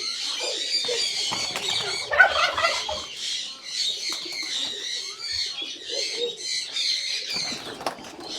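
Birds at a pigeon loft calling throughout: a dense, high-pitched chirping chatter with lower calls underneath, and a louder burst of sound about two seconds in.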